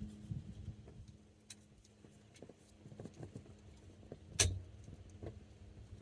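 Small clicks and taps of a screwdriver working on the loose turn-signal lever screw inside a 1982 Chevy C10 steering column, with one sharper click about four and a half seconds in. A faint steady low hum runs underneath.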